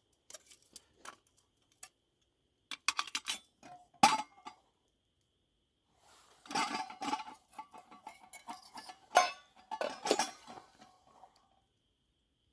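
Metal Kelly Kettle cook-kit pieces (pot, cup and grill) clinking and knocking together as they are handled, some knocks ringing briefly. A short group of clinks comes about three seconds in, the loudest sharp clink about a second later, then a longer run of clattering from about halfway through.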